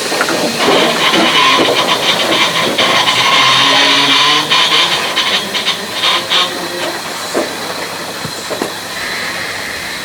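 Steam locomotive hissing steam. The hiss is loud for about the first six seconds, with a run of short knocks through the middle, then dies down to a quieter hiss.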